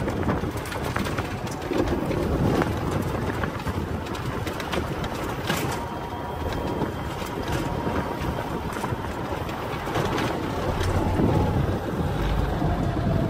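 Golf cart driving over snow: the rumble and crunch of its tyres, with wind buffeting the microphone. A faint steady whine joins in about five seconds in and drops slightly in pitch near the end.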